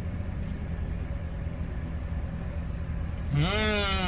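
Steady low drone of a Suzuki car idling, heard from inside the cabin. About three and a half seconds in, a man gives one long appreciative 'mmm' while chewing a sour cherry; its pitch rises and then falls.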